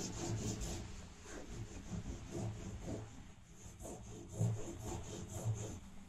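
Yellow oil pastel scribbling on drawing paper over a wooden board: quick, irregular back-and-forth rubbing strokes as a sun ray is coloured in.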